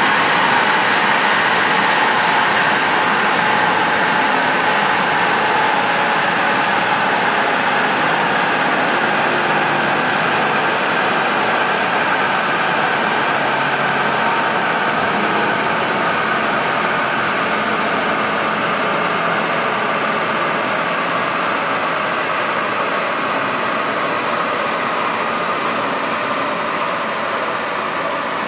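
Porsche 718 Boxster S running with its rear wheel spinning on a chassis dynamometer's rollers: a steady whine that slowly drops in pitch and fades a little, with no revving.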